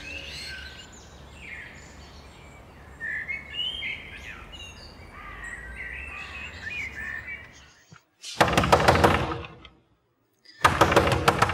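Birds chirping over a steady background hiss, then a hand knocking rapidly on a wooden door in two bursts near the end.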